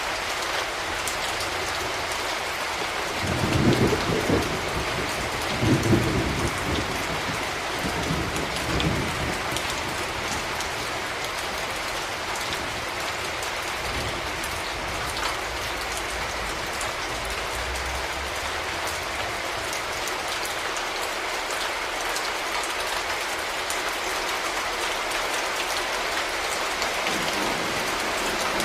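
Steady rain falling, with rumbles of thunder twice, a few seconds in, then a fainter one shortly after.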